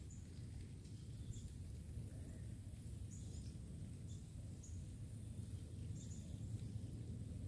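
Quiet riverside ambience in light rain, with scattered faint high chirps and a steady low rumble underneath.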